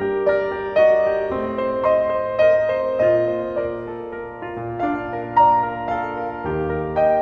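Background music: a gentle, slow piano piece playing single notes over soft chords.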